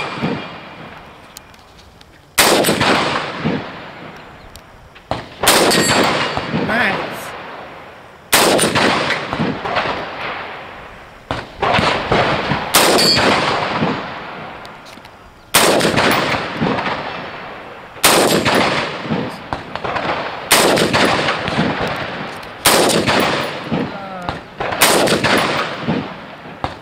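IWI Tavor bullpup rifle fired in slow, deliberate single shots, about nine in all, one every two to three seconds. Each crack is followed by a long echo that dies away before the next shot.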